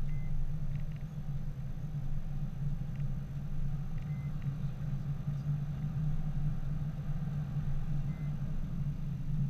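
Steady low drone of a car's engine and tyres at highway speed, heard from inside the cabin.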